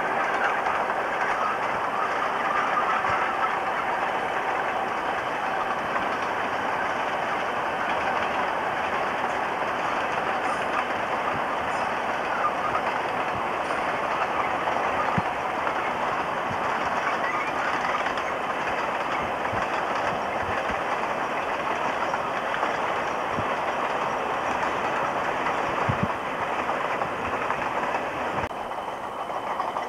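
Queensland Railways narrow-gauge diesel-hauled passenger train passing close at speed: a steady rush of wheel and rail noise as the carriages roll by, with a few sharp clicks over rail joints.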